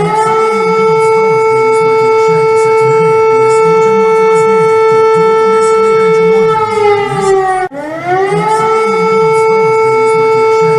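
Civil defence siren sounding a loud wail: the pitch rises, holds steady for about six seconds, falls, then rises again about eight seconds in and holds.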